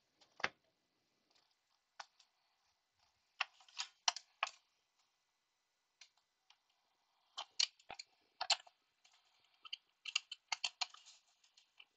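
Scattered light clicks, knocks and rustles in small clusters, several seconds apart: small objects being handled and rummaged through while searching for a Wi-Fi device.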